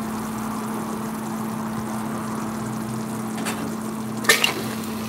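Thick meat curry frying down and sizzling in an open aluminium pressure cooker, with a steady hum underneath; the masala is just starting to stick to the bottom. A faint click comes about three and a half seconds in, then a sharp metallic clink just after four seconds.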